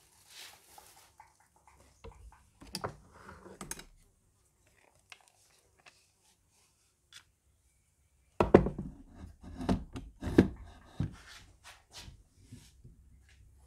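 Handling noise from a Daisy Avanti 753 air rifle being reassembled: scattered clicks, rubs and light knocks of the metal action and lever against the workbench, with a cluster of louder knocks and clatter about eight seconds in.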